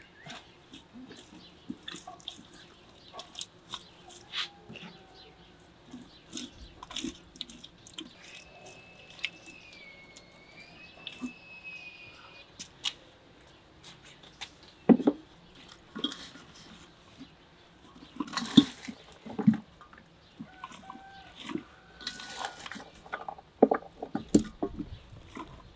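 Hands rubbing wet spice paste into a raw whole lamb carcass, making soft squelches and small slaps. In the second half come several louder knocks as vegetables are handled in an enamel bowl.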